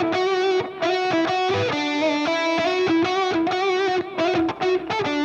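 Electric guitar playing a simple single-note lead melody, the notes plucked with the fingers rather than a pick for a softer attack, held notes shaken with vibrato; the line pauses briefly about four seconds in.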